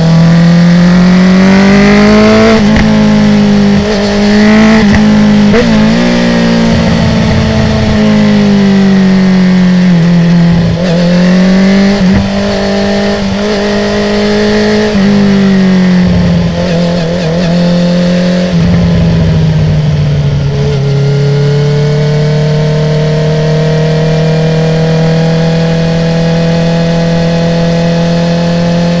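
2019 Honda CB650R's inline-four engine through an Akrapovic full titanium exhaust with the dB killer removed, revving up and down through repeated quickshifter gear changes with crackling pops when the throttle closes. For roughly the last third it holds a steady, slowly rising note.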